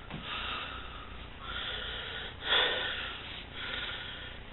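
A person breathing and sniffing close to the microphone, a soft breath about every second, the loudest about two and a half seconds in.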